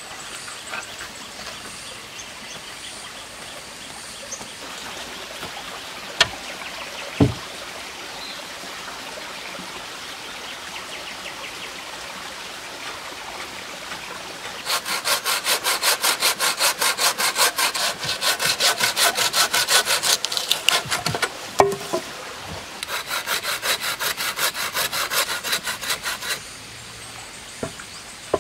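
Metal saw blade in an improvised wooden frame cutting through a barked log. It makes two runs of quick back-and-forth strokes: the first starts about halfway through and lasts about seven seconds, and the second follows a short pause and lasts about three and a half seconds. Before the sawing there is only a low outdoor background with a couple of thumps.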